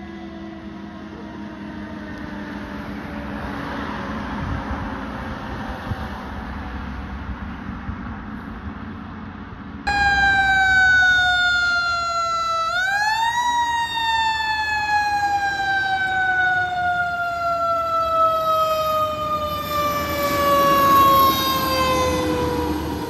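Fire engine siren wailing and falling slowly in pitch as the truck drives away. About ten seconds in, a second, much louder fire engine siren takes over; it sweeps back up once and then falls slowly again.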